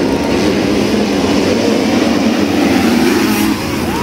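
A pack of motocross dirt-bike engines running together at high revs, a loud, dense drone that eases slightly near the end.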